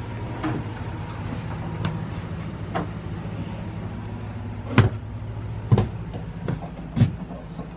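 Knocks and clunks of hands and tools working at the propeller shaft and dripless shaft seal down in a sailboat's engine space, with three louder knocks about a second apart in the second half, over a steady low hum.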